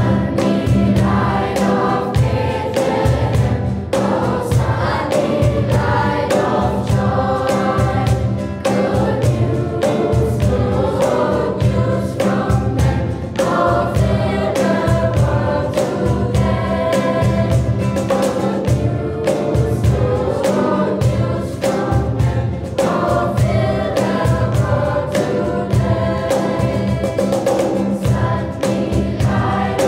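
Teenage school choir of boys and girls singing in unison with acoustic guitar and a steady cajón beat.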